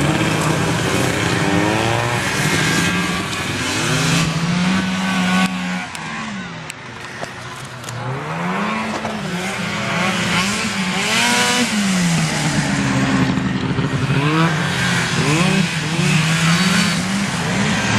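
Several vintage two-stroke snowmobile engines racing, their pitch climbing and falling as they rev and ease off. The sound fades briefly about six to eight seconds in, then builds again.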